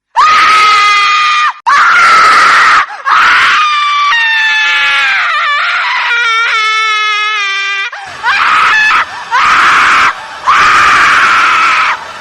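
Horror sound-effect shrieks of a female ghost: a run of high, piercing screams separated by short breaks, the longest, in the middle, held about four seconds and sliding down in pitch.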